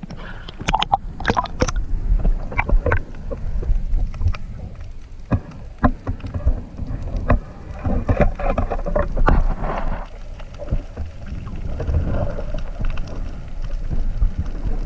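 Water noise around a spearfisher in the sea: a steady low rumble with scattered sharp clicks and knocks.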